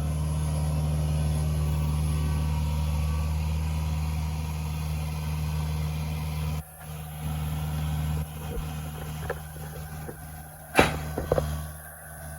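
An engine running steadily, with scattered knocks in the second half and one loud sharp knock about eleven seconds in.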